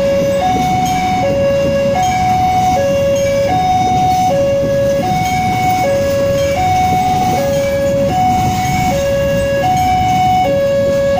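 Level-crossing warning alarm sounding a steady two-tone electronic chime, low then high, a pair about every one and a half seconds. Under it, the carriages of a passing passenger train rumble over the track.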